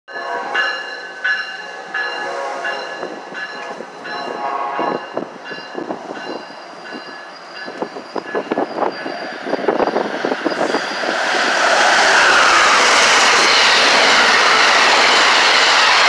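Amtrak passenger train led by an ACS-64 electric locomotive rushing through a station at speed: a loud, steady rush of wheels and air that comes in about twelve seconds in and holds. Before it, train wheels clack over rail joints under several high, steady ringing tones.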